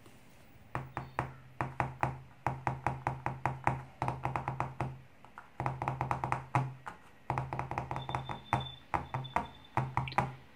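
Fingertips tapping on a desk-top cutting mat in quick runs, several taps a second with short pauses, as the test sound that sets off an Arduino sound sensor module.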